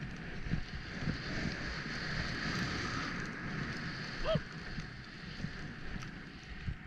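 Skis hissing and swishing through deep powder snow, with wind rumbling on the helmet camera's microphone and soft thumps from the turns. A single short pitched squeak about four seconds in.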